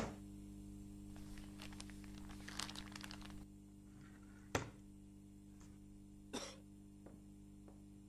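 Faint room tone with a steady low electrical hum, broken by a light rustle and a few soft knocks, the sharpest about four and a half seconds in and a softer one about two seconds later.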